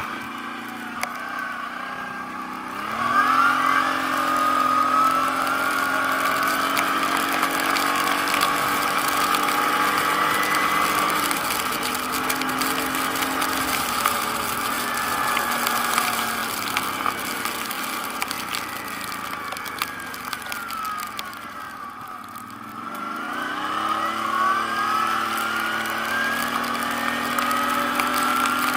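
ATV engine pulling hard: it revs up about three seconds in and holds, eases off around twenty seconds in, then revs up again a few seconds later, with a rising whine riding over the engine note.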